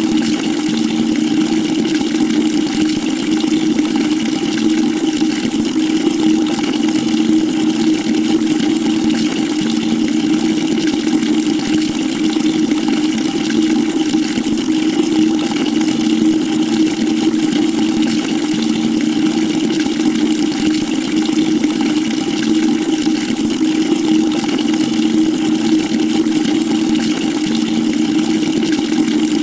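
Water pouring steadily into a bucket: an unbroken rush of falling water with a constant low hum underneath.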